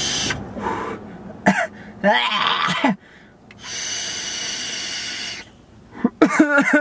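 A man takes a long drag on a box-mod vape: a steady hiss of air drawn through the device for about a second and a half near the middle. Before it and again as he blows out the vapour there are wheezing, coughing throat noises.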